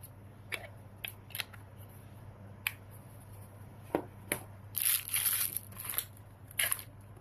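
Small items being handled: scattered light clicks and taps, then a few short rustles a little past the middle, over a low steady hum.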